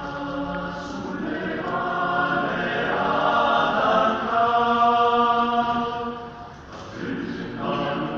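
Male choir singing in close harmony, holding long chords that shift from one to the next; the voices drop away briefly about six and a half seconds in between phrases, then come back.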